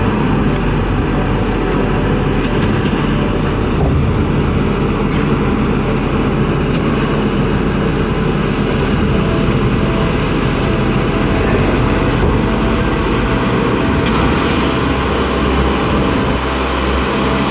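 Kato mobile crane's diesel engine running steadily as it hoists, a continuous low mechanical rumble.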